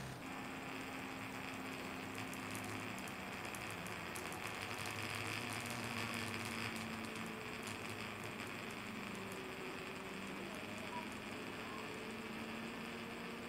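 Stepper motors of a GRBL-driven 3-axis CNC test rig (two square hybrid steppers and a round can-type stepper) humming as they step. Each hum holds a steady pitch, then stops or shifts to another pitch every few seconds as the axes start, stop and change speed, with a short glide in pitch about nine seconds in.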